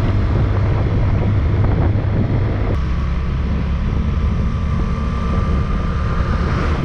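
Motorcycle engine running at road speed, heard from the rider's position with wind rushing over the microphone. The engine note changes abruptly about three seconds in, and a thin steady whine runs through the second half.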